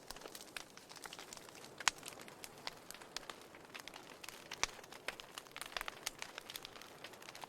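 Wood fire crackling in a fireplace: a steady soft hiss with irregular sharp pops and snaps, the loudest about two seconds in.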